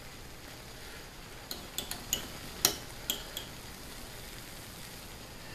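A metal serving spoon clinking against a stainless steel pan while scooping food out: a quick, uneven run of about seven sharp clinks around the middle.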